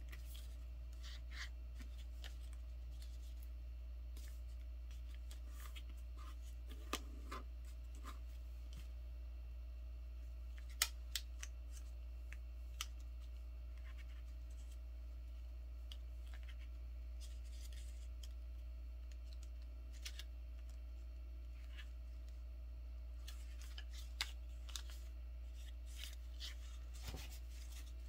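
A sheet of paper being folded and creased by hand into a paper airplane: scattered soft rustles and sharp crinkling clicks as the fingers press the folds flat, over a steady low hum.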